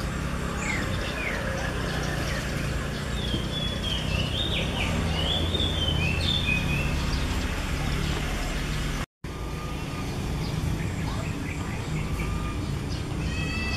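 Small birds chirping with short, quick rising and falling calls, mostly in the first half, over a steady low rumble. The sound cuts out for a split second about nine seconds in.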